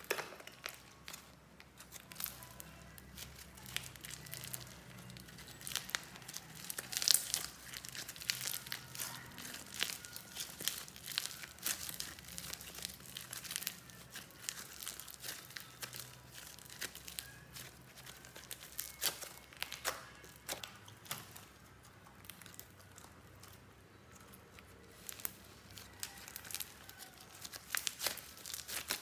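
Clear slime mixed with soft clay being kneaded, squeezed and stretched by hand, giving a stream of irregular sticky crackles and clicks.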